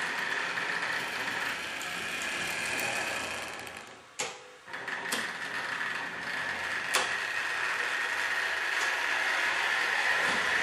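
Trix Express H0 model trains running: a steady whir of small electric motors and wheels on the track. About four seconds in the running sound fades away briefly, then comes back with a sharp click. Further sharp clicks come about five and seven seconds in.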